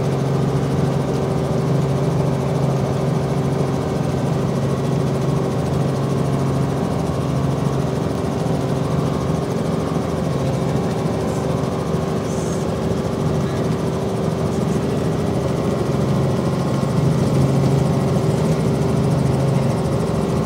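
Robinson R44 helicopter's piston engine and rotor running in a steady, unchanging drone, swelling slightly near the end.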